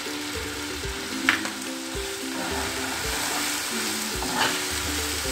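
Seasoning and vegetables sizzling in hot oil as they are stir-fried, with a spatula scraping the pan twice. Soft background music plays underneath.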